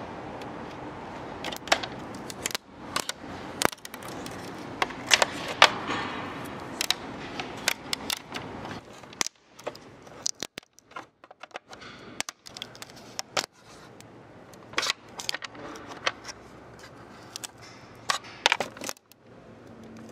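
Old rubber valve cover gasket crackling and snapping as it is picked out of its groove in the plastic valve cover, with the metal pick clicking against the cover. Irregular crackles and clicks, thinning out in the middle and picking up again near the end. The gasket is hardened and brittle with age, breaking as it is touched: the aged seal behind the oil leak.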